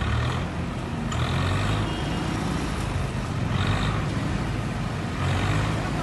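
Maruti Gypsy King's engine running as it drives into a shallow river: a steady low hum, with brief surges of hiss four times.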